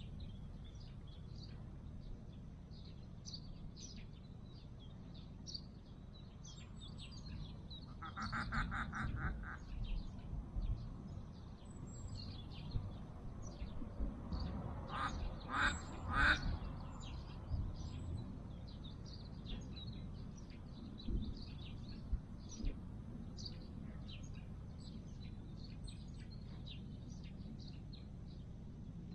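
Mallard-style quacking: a quick run of short quacks about a third of the way in, then three loud quacks about halfway through. Small birds chirp throughout.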